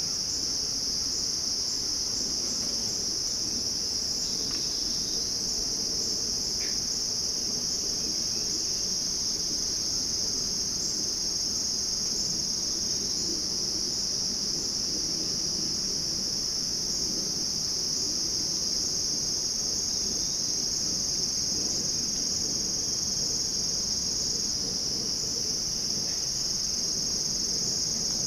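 Insect chorus: a steady, high-pitched trilling that runs on without a break.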